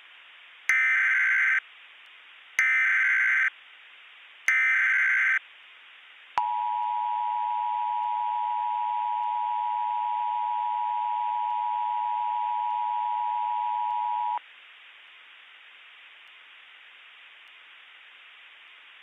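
Emergency Alert System tones: three short bursts of the SAME digital header, each just under a second and about two seconds apart. Then the two-tone attention signal sounds as one steady dual tone for about eight seconds and cuts off sharply, over a faint steady hiss.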